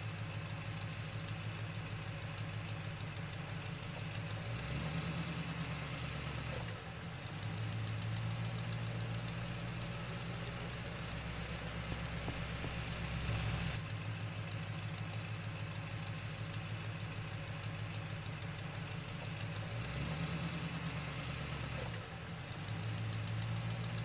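Electric motor on a homemade RC truck running steadily with a low, rapidly pulsing hum. Its note shifts briefly about five seconds in, again near the middle, and again near the end.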